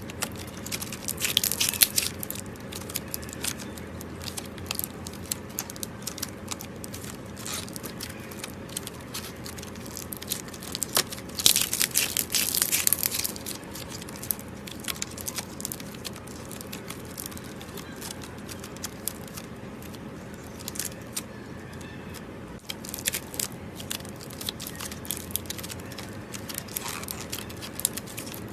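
Glossy mirror-putty slime being pressed and stretched by hand, giving a steady run of small popping and crackling clicks from trapped air bubbles. The pops come thickest about a second in and again around twelve seconds in.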